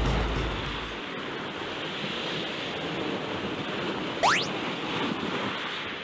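Surf washing in over a rocky cobble beach, with wind on the microphone; background music fades out in the first second. About four seconds in, a brief, sharp rising whistle is the loudest sound.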